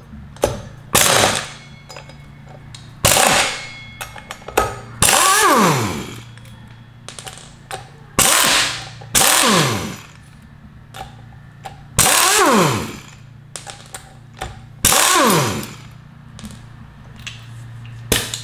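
Pneumatic impact wrench hammering in short bursts, about eight in all, loosening the bolts that hold the rear brake rotor to the wheel. After several bursts the motor's whine falls away in pitch as it spins down, and light metallic clicks come between the bursts.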